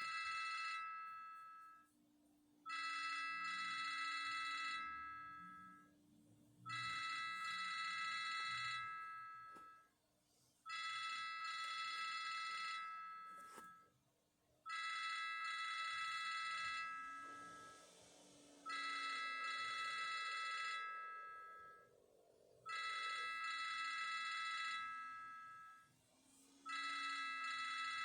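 Siemens AL21 phone playing one of its built-in ringtones: a high electronic ring of about two seconds, repeating every four seconds with short pauses between.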